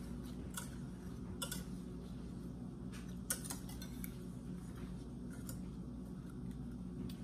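Wire whisk clinking against the sides of a stainless steel saucepan while stirring hot chocolate with a softening chocolate tablet, a scatter of light, irregular ticks.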